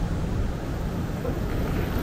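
City street ambience: a steady rumble of traffic on a busy road.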